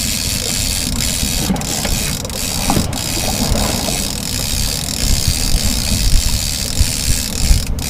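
Fishing reel being cranked as a fish is played on a bent rod, with a steady rush of wind and water over it.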